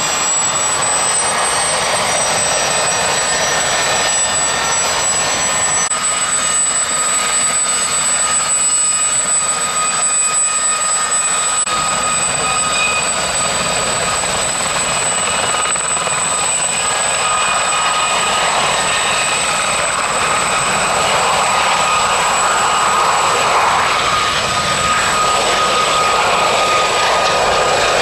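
Westland Gazelle HT3 helicopters' turbine engines and rotors running as the pair lift off and hover low, with a steady high whine that rises slightly in pitch about a second in.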